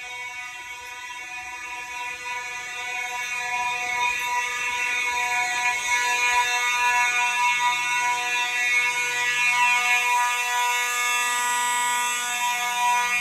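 Fire alarm bell ringing continuously, growing louder over the first few seconds and then holding steady.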